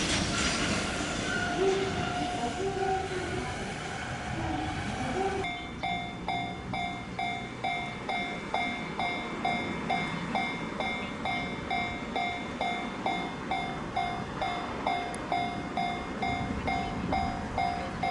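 Freight train running by, a loud continuous rush of wheel and rail noise. About five seconds in this gives way to a Japanese level-crossing warning bell ringing steadily at about two strokes a second, over the low rumble of the train.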